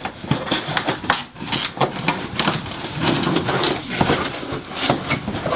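A cardboard mystery box and its packing being torn open and rummaged through: irregular rustling, tearing and knocking.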